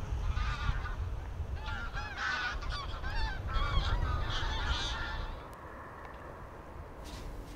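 A flock of geese honking in flight, many overlapping calls, dying away about five seconds in.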